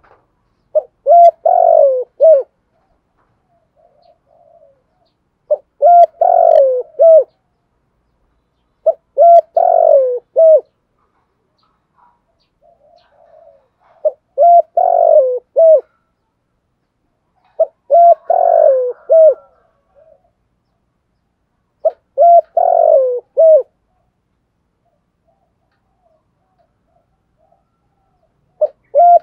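Spotted dove cooing: six repeated phrases about four seconds apart, each a few short clipped notes around one longer falling coo, with soft quieter notes in some of the gaps.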